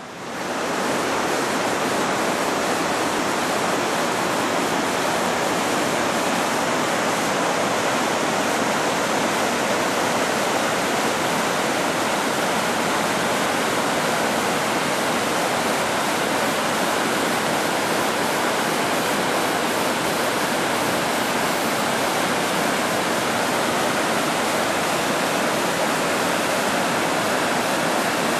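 Whitewater river rapids pouring over rocks: a steady, full rush of water that comes up within the first second and holds.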